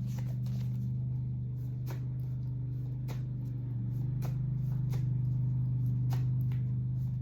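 A steady low hum with short faint clicks scattered through it.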